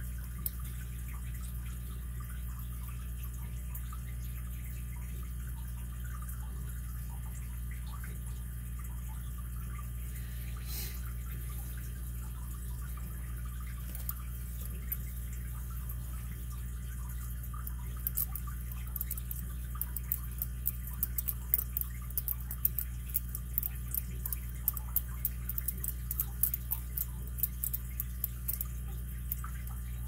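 Steel lock pick working the pin stack inside a solid-brass Hercules 800 pin-tumbler padlock: faint scratching and ticking at first, then, about two-thirds of the way through, a quick, irregular run of sharp metallic clicks as the pick works the pins. A steady low hum underneath.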